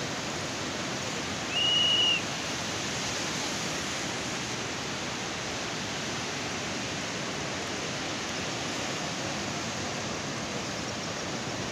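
Steady rushing of the flooded Swat River in full spate. About a second and a half in, a short high whistle-like tone sounds for under a second, louder than the water.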